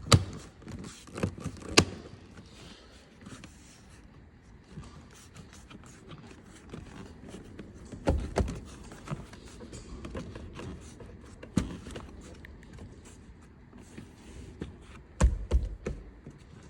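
Scattered clicks, knocks and light scrapes of car interior trim pieces and wiring being handled during an installation, with clusters near the start, about eight seconds in and near the end.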